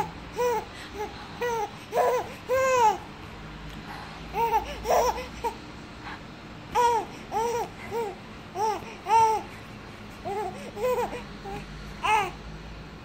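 Baby babbling in short, high-pitched, arching squeals, several in a row then a brief pause, a happy, giggly sound.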